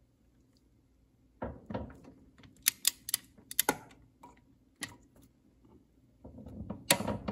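Click-type torque wrench ratcheting on the motor pulley bolt, a string of sharp metallic clicks, several close together in the middle and a few more scattered later, as the bolt is brought up toward the wrench's 40 foot-pound setting.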